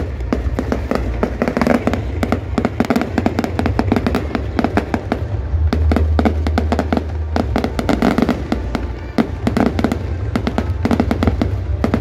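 Aerial fireworks going off in a rapid, continuous stream of bangs and crackles.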